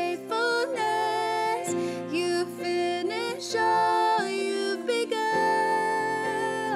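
Two women singing a worship song together, accompanied by strummed acoustic guitar.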